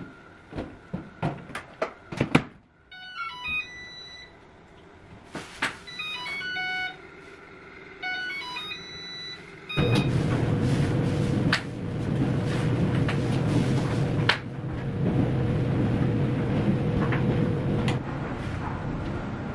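Clunks and clicks of laundry being handled at front-load Whirlpool machines, then a string of electronic beeps and short chime tunes from the washer and dryer control panels as they are set. About ten seconds in, a steady rushing noise with a low hum starts as a machine begins to run.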